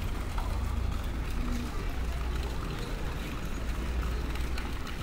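Outdoor background: a steady low rumble with faint, indistinct voices of people nearby.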